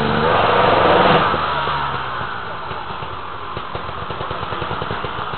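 Off-road trail motorcycle engine revving up hard at the start, loudest about a second in, then dropping back to low revs and running with a fast, even pulsing.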